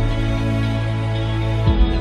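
Background music of slow, sustained chords, changing to new notes near the end.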